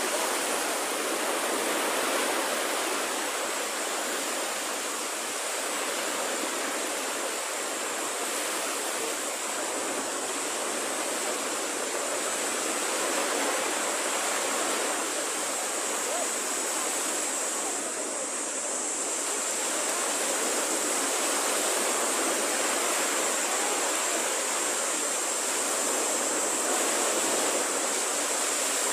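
Small waves breaking and washing up a sandy beach, a continuous surf noise that swells and eases gently, with a steady high hiss underneath.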